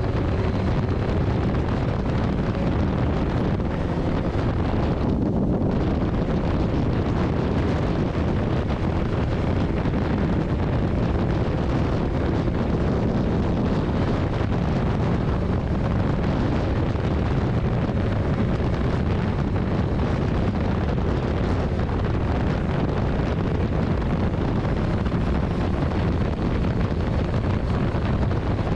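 Steady wind noise on the microphone over a continuous low rumble.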